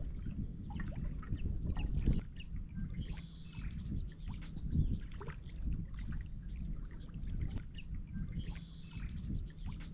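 Water sloshing and trickling over a steady low rumble, with many small scattered clicks and crackles.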